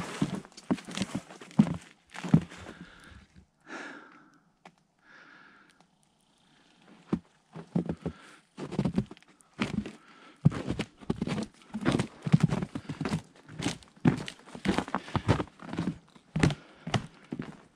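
Hiking boots crunching in fresh snow on a plank boardwalk trail, at a steady walking pace of about two steps a second. The steps stop for about four seconds a few seconds in, then resume.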